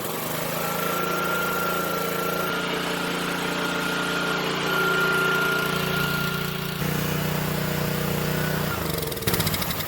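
Honda GCV190 single-cylinder engine on a pressure washer running steadily after a shot of starting fluid, after sitting unused for years; that it fires on the fluid shows spark is good and points to stale gas in the carburettor. Near the end it is shut off and winds down.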